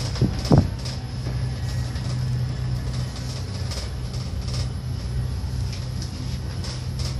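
Steady low rumble inside a moving cable car gondola cabin as it rides along its cable, with two or three sharp knocks in the first second.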